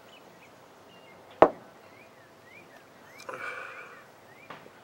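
A single sharp knock about one and a half seconds in, then a brief rustling noise a couple of seconds later. Faint short chirps repeat underneath.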